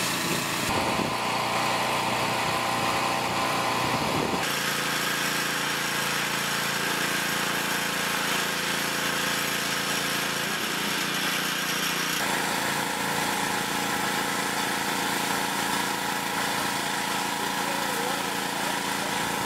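Small gasoline engine of a portable pressure washer running steadily, its tone shifting abruptly a few times.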